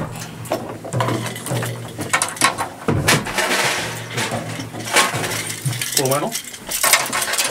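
Drums of a drum kit being struck and tapped again and again while they are tuned, many sharp hits, with a hissing wash for about a second near the middle. Brief talk near the end.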